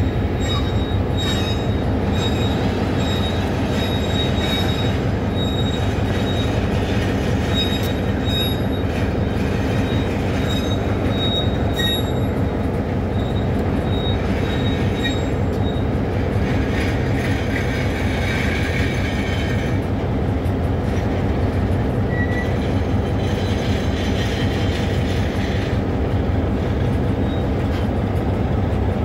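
Goods train of railway tank wagons rolling past as it pulls out, a steady rumble of wheels on rail. A thin, high wheel squeal comes and goes through the first half, a lower squeal follows briefly a little past the middle, and there are scattered clicks from the wheels.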